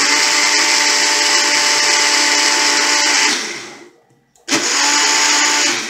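Single-serve blender motor running in two pulses, blending fruit and water into a smoothie to break up the last chunks. The first run lasts about three seconds and winds down, and after a short pause a second run of about a second and a half also winds down.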